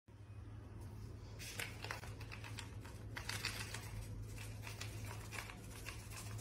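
Faint rustling and scattered light clicks over a low steady hum.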